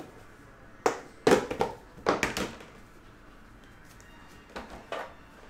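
Objects being handled: a quick run of sharp taps and knocks, then two softer knocks near the end.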